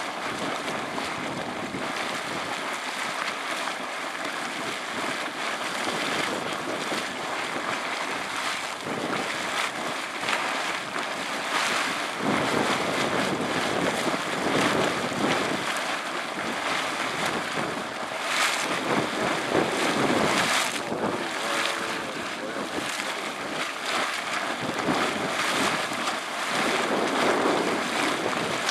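Boiling water gushing and splashing out of a small geyser vent in a thermal basin, a steady rushing splash that surges louder now and then.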